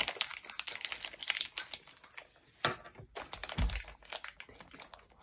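Plastic toy packaging crinkling and crackling as it is handled and pulled at, in quick irregular crackles, with a soft thump about three and a half seconds in.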